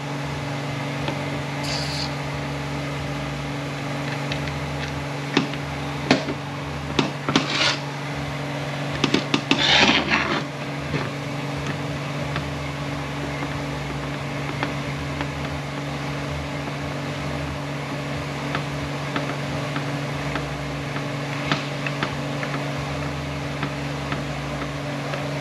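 Hand-turned T-handle reamer scraping in an aluminium valve body bore, reaming out a worn accumulator bore of a GM 6T70 transmission valve body. It is faint under a steady hum, with a few small metal clicks and a short burst of hiss and clatter about nine to ten seconds in.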